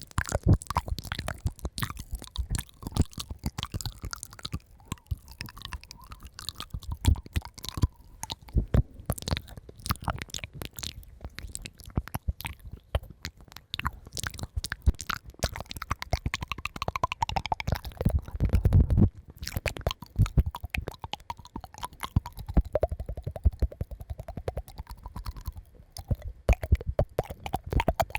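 Close-miked ASMR mouth sounds: a dense, irregular run of wet clicks and smacks, louder and deeper for a moment at about two-thirds of the way through.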